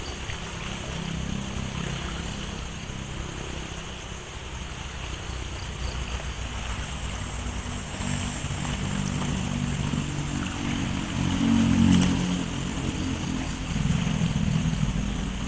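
Small river flowing steadily, with a motor vehicle's engine rumbling past that grows louder and peaks about twelve seconds in.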